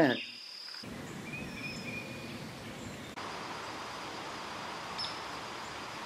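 Steady outdoor background hiss with a few faint, thin, high-pitched calls.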